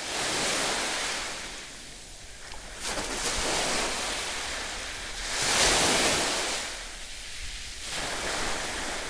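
Small sea waves washing onto a beach, swelling and fading in surges about every two and a half seconds.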